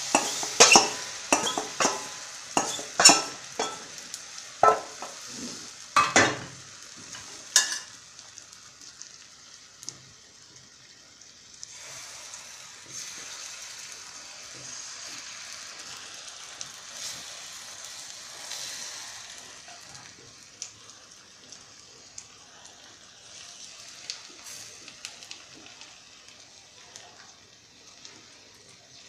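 A metal spoon clinking and scraping against a steel bowl, several sharp knocks in the first eight seconds, as batter is poured into an oiled pan. The thin patisapta batter then sizzles softly in the non-stick pan, with light scrapes of the spoon spreading it.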